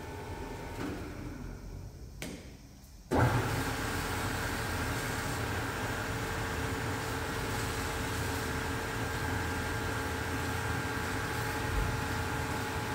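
Bomar gravity-feed metal-cutting band saw switched on about three seconds in: its motor starts abruptly and then runs steadily, driving the blade with a steady mechanical hum and a faint whine. Before that, a fainter machine sound dies away.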